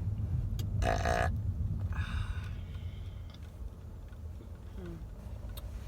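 A woman's loud burp about a second in, followed a second later by a shorter, breathier sound, over the steady low rumble of a car cabin on the road.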